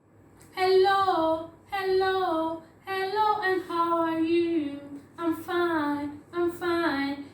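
A woman singing a children's greeting song unaccompanied, in short phrases whose held notes slide down in pitch at their ends.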